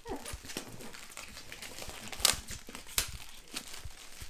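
Plastic shrink-wrap crinkling and tearing as it is pulled off a boxed board game: a run of irregular crackles, with a couple of louder snaps about two and three seconds in.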